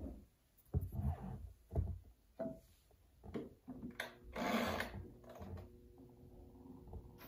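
Handling noises as a 78 rpm shellac record is set up on a phonograph: soft knocks and clicks, a brief scraping rustle about four and a half seconds in, then a faint steady hum.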